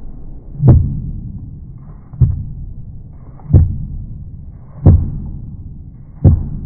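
A kitchen knife slicing through a mushroom and striking a plastic cutting board, heard slowed down: five deep, evenly spaced thuds about a second and a half apart, each fading quickly.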